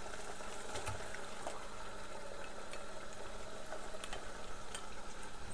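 Onion-tomato masala bubbling in the pan on the heat, a steady simmer with scattered small pops and spits, over a low steady hum.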